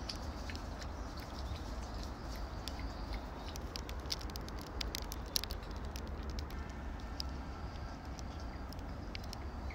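Scattered light clicks and rustles, densest in the middle, over a steady low rumble.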